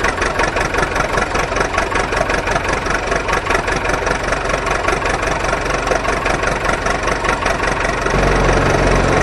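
An engine sound effect for the toy truck: a truck engine idling with a fast, even chugging. About eight seconds in, a low steady drone joins it.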